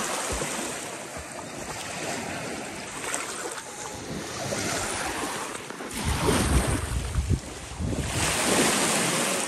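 Small lake waves washing onto a sandy shore, with wind buffeting the microphone in low gusts from about six seconds in.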